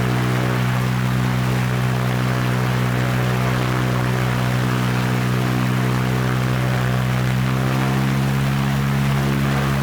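Airplane engine running at a steady drone: a low, even hum with a rushing noise over it.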